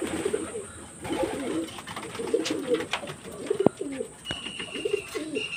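Domestic pigeons cooing, many low wavering coos overlapping one after another. A single sharp tap sounds about two-thirds through, and a thin high whistle comes in near the end.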